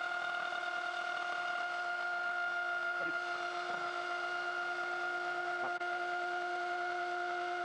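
DeWalt cordless trim router running at a steady speed with a constant whine, its cutter rounding a square wooden dowel as the dowel is pushed through a 3D-printed lathe attachment.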